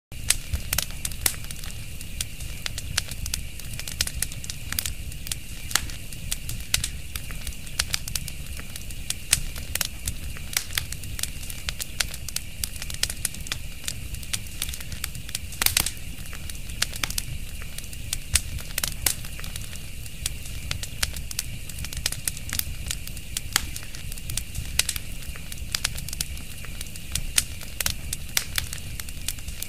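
A fire crackling: frequent irregular sharp pops and snaps over a steady low rush, with one of the strongest pops about halfway through.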